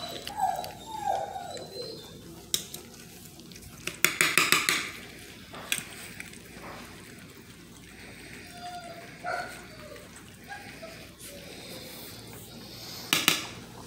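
Basset hound puppies eating wet mush from metal dishes: the metal dishes clatter in short bursts, loudest about four seconds in and again near the end, over soft wet eating sounds, with a few small falling squeaks from the puppies.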